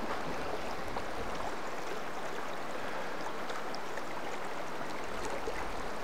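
River water flowing past a stony bank: a steady, even rushing hiss.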